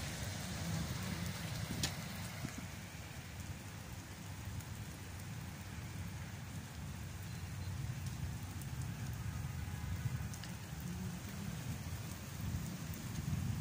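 Steady rain falling on wet paving and rooftops, over a low rumble. A couple of sharp ticks stand out, about two seconds in and again about ten seconds in.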